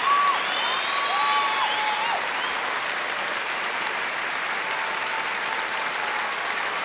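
A large concert audience applauding steadily in a curtain-call ovation. A few long cheers ring out over the clapping in the first two seconds, and a faint one comes later.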